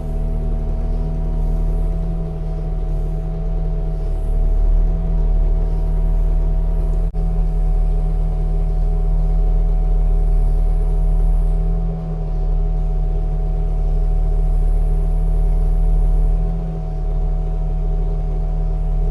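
Bobcat T650 skid steer's diesel engine running steadily, with a steady whine over its low hum and a brief dip in level twice late on.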